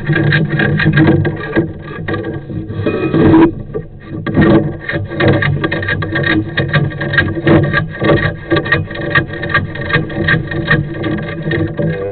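Sewer inspection camera and its push cable scraping, knocking and rattling inside a cast iron drain line as the camera is worked forward against an obstruction, over a steady low hum.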